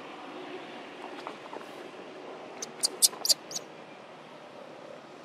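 Baby long-tailed macaque squeaking: a quick run of about five short, high-pitched squeaks about three seconds in, over a steady background hiss.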